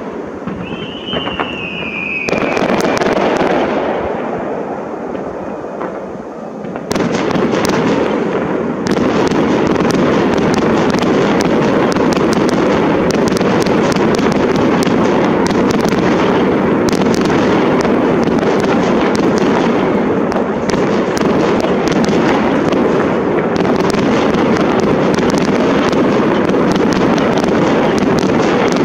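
Fireworks display: scattered bursts with a short falling whistle about a second in, then from about seven seconds in a dense, unbroken barrage of shell bursts and crackle as many shells go off together.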